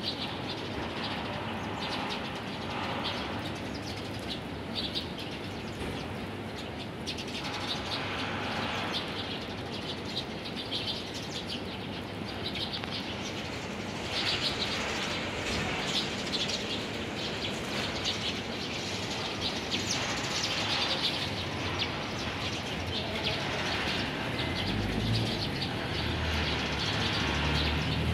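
A flock of Eurasian tree sparrows chirping continuously, with wing flutters as birds fly up and land. The chirping is busiest about halfway through and again about twenty seconds in, and a low rumble comes in near the end.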